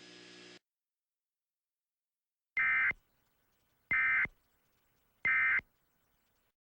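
Emergency Alert System end-of-message code: three identical short bursts of digital data tones, each under half a second, about a second apart, marking the end of the blizzard warning message.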